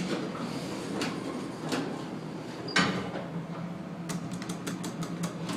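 Elevator car running, with a steady low hum and scattered mechanical clicks and knocks. There is a sharper knock about three seconds in and a quick run of clicks near the end.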